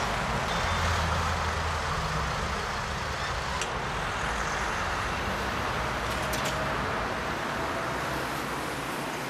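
Steady road traffic noise with a few faint clicks.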